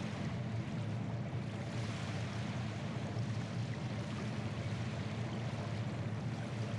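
Ferry under way: a steady low engine rumble with water churning along the hull.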